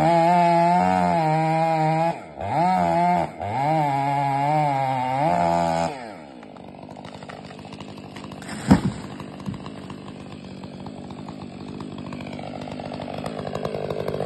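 Stihl 500i two-stroke chainsaw at full throttle cutting through an elm trunk, its pitch sagging and recovering under load with two brief drop-outs; about six seconds in it falls back to idle. A little under nine seconds in, the felled elm hits the ground with one loud thud while the saw keeps idling.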